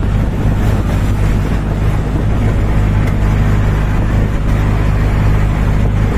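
Bajaj Maxima Z CNG auto rickshaw's single-cylinder engine running steadily at cruising speed, heard from the driver's seat as a constant low hum with road noise.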